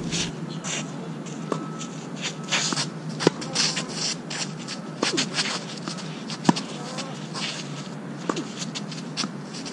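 Tennis rally: rackets strike the ball every 1.5 to 2 seconds, about six hits in all, the loudest about six and a half seconds in. Between the hits, players' shoes scuff and slide on the court.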